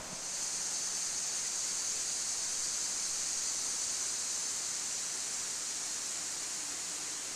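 Steady, high-pitched drone of cicadas in the summer forest canopy.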